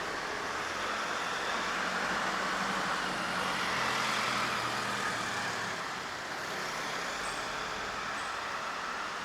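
Underground parking garage ambience: a steady noisy din with a faint low hum, swelling gently to its loudest about four seconds in and easing off after.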